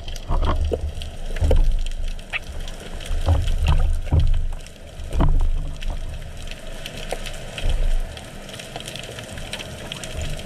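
Water sloshing and rushing around a speargun-mounted camera just below the surface, in irregular low surges, with scattered small clicks and knocks.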